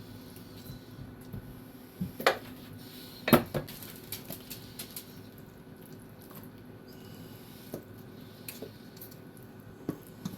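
Kitchen utensils and dishes knocking and clinking, with two loudest clatters a couple of seconds in and a few lighter taps later, over a faint steady hum.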